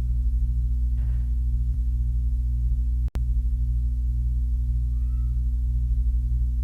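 Steady low hum, with one faint, short, rising kitten mew about five seconds in. The sound drops out for an instant near the middle.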